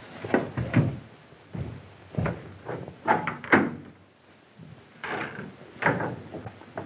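A wooden door being opened and shut, with footsteps and a series of knocks and thumps.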